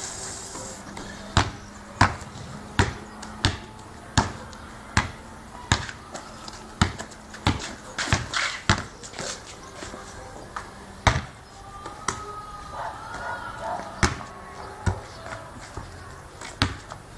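Basketball being dribbled on paving stones: sharp bounces in a steady rhythm, about one every 0.7 seconds.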